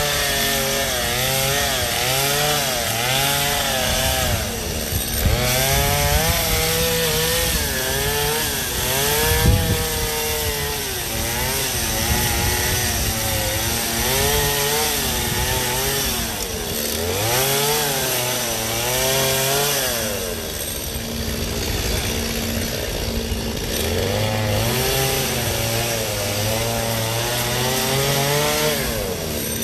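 Gas chainsaw cutting into a block of ice, its two-stroke engine revving up and dropping back again and again as the blade bites and eases off.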